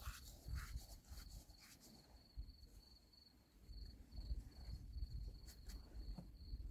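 A cricket chirping steadily in a fast, pulsing high trill, over a faint low rustle and rumble.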